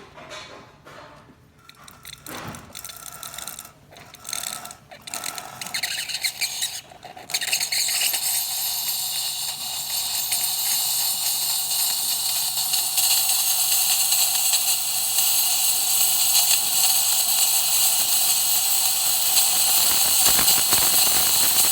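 DeLonghi Magnifica XS steam wand turned on, sputtering and spitting for about the first seven seconds, then settling into a steady, loud hiss of steam that builds slightly toward the end: the steam system is delivering good steam.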